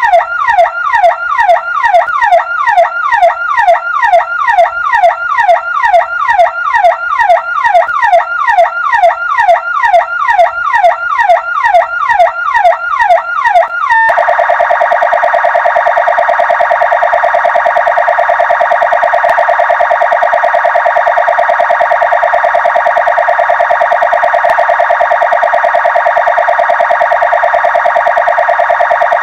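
Electronic ambulance siren, first sounding as fast repeating falling sweeps of about three a second. About halfway through it switches abruptly to a steady, rapidly pulsing buzzing tone that holds.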